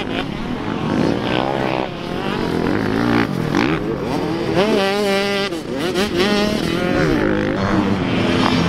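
65cc two-stroke motocross bike engine revving hard and easing off over and over as it is ridden over jumps and through corners, its pitch rising and falling repeatedly.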